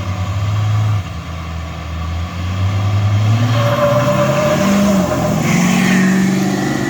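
Engine of a vehicle drag racing at full throttle, accelerating through the gears; the engine note drops briefly at each shift, about one second and two and a half seconds in, then climbs again.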